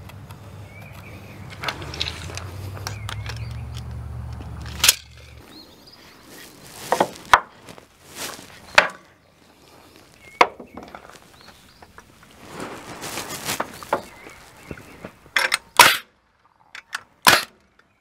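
A scattering of sharp wooden knocks and clacks as lumber blocks and tools are handled and set between floor joists, with a low hum for the first five seconds or so.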